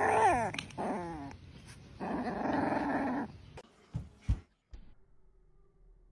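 Young puppy growling and yelping, its yelps sliding down in pitch, with a longer growl about two seconds in. After it stops, a few short dull thumps follow.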